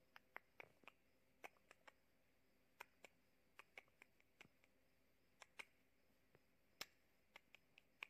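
Near silence broken by faint, short clicks at an uneven pace of two or three a second, the loudest about seven seconds in.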